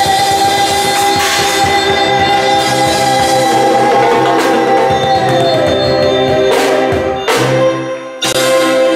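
Live norteño band with accordion and keyboard holding the long closing chord of a song, with drum and cymbal hits for the final flourish about two-thirds through. Near the end the band cuts off abruptly and other music takes over.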